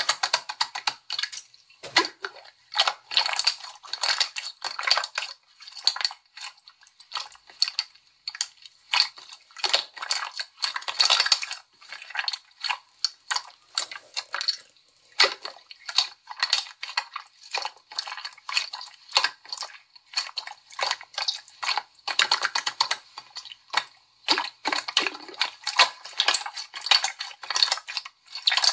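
Translucent purple slime being pressed, kneaded and stretched by hand, giving many small clicks and pops in quick clusters.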